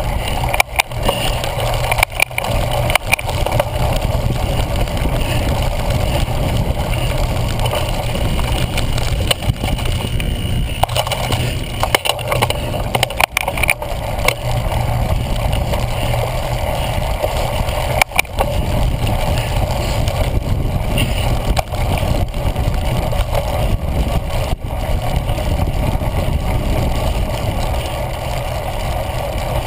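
Steady rumble and rattle of a cyclocross bike ridden over bumpy grass, picked up by a handlebar-mounted GoPro. Short knocks cut in several times as the bike hits bumps.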